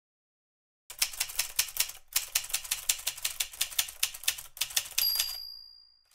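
Manual typewriter keys clacking in quick strokes, with a short pause about two seconds in, then the carriage-return bell dings once about five seconds in and rings out.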